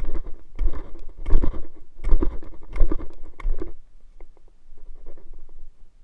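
Dry leaves and forest litter crunching and rustling close to the microphone, with heavy thumps of handling. It dies down to a few light crackles about four seconds in.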